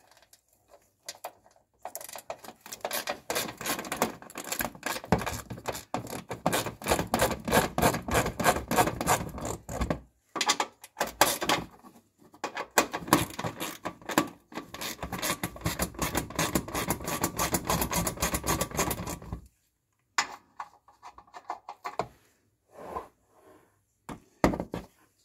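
Hand ratchet driver clicking rapidly as it backs out the screws of a car's plastic under-engine splash shield, in two long runs of several seconds each, followed by a few scattered knocks.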